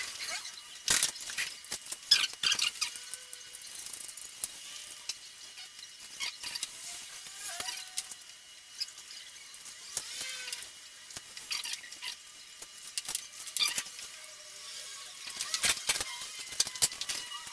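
Irregular clicks and knocks of the white plastic body shell of a DJI Phantom 4 drone being handled and fitted together by hand, with faint short plastic squeaks between them. The clicks bunch up near the start and again near the end.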